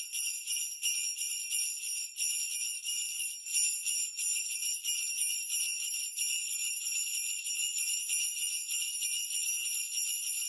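Sleigh bells jingling steadily and without pause, a bright, high shimmer.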